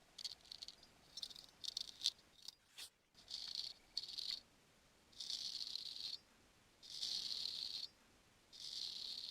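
Close-up scratching and rasping of ear grooming inside the ear: a quick run of short scrapes, then five longer scraping strokes of about a second each. This is an added ear-grooming sound effect.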